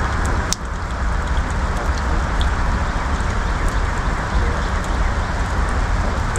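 Rented stump grinder's gas engine running steadily under load as the cutting wheel grinds into an oak stump, with scattered sharp ticks over the noise and a brief dip about half a second in.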